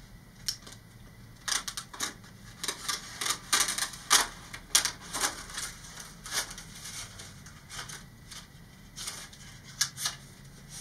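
Thin polystyrene vacuform sheet being scored with a hobby knife and flexed along the score: a string of irregular sharp clicks and ticks, busiest in the first half and again near the end.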